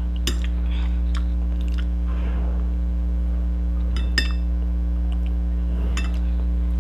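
Eating sounds: soft chewing and the metal spoon clinking against the glass soup bowl three times, the middle clink ringing briefly. A steady low electrical hum runs underneath.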